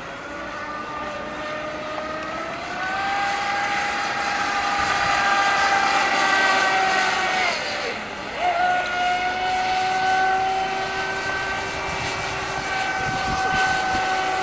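Joysway X-Blaze RC speedboat's brushless electric motor whining at speed over the hiss of its spray. The whine rises in pitch over the first few seconds and holds, dips and breaks briefly about eight seconds in, then climbs back and holds steady.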